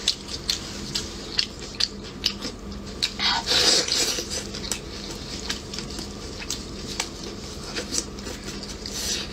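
Wet, sticky squelching and tearing of braised lamb leg bone pulled apart with plastic-gloved hands, with chewing. There are many small clicks and smacks, loudest a little over three seconds in.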